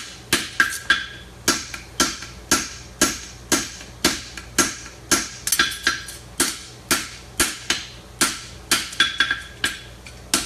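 Farrier's hammer striking bar stock on an anvil in a steady rhythm, about two blows a second, each with a short metallic ring.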